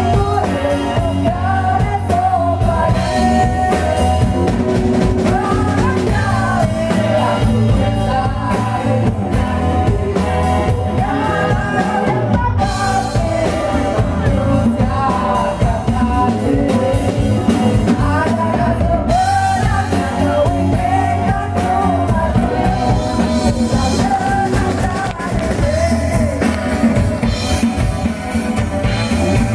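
A live band playing a song: a singing voice over strummed acoustic guitar, electric bass, a hand drum and drums.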